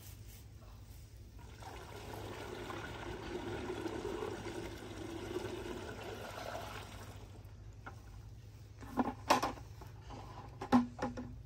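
Water pouring from a plastic bucket through a funnel into the spray tank of a DJI Agras T40 crop-spraying drone. The flow swells and then tails off, and a few sharp knocks follow near the end.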